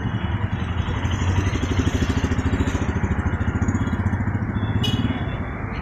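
Motorcycle engine idling with a steady, even beat.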